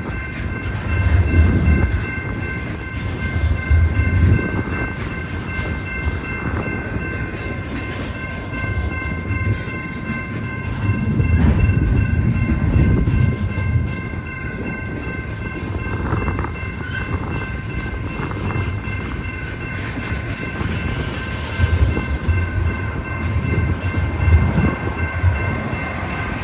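Freight train rolling past, its cars rumbling and clacking over the rails in swells every few seconds, with a steady high ringing tone held underneath throughout.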